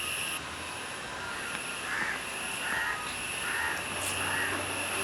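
A crow cawing four times, roughly a second apart, over a steady high-pitched insect drone.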